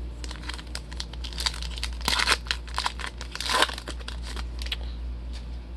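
A trading card pack's wrapper crinkling and tearing as it is opened, a run of sharp crackles that is loudest about two and three and a half seconds in, over a low steady hum.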